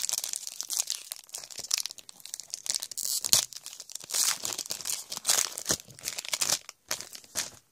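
Foil wrapper of a Panini Prestige football card pack being torn open and crinkled by hand: a dense run of irregular crackles and tearing sounds as the pack is ripped and the cards are worked out of it.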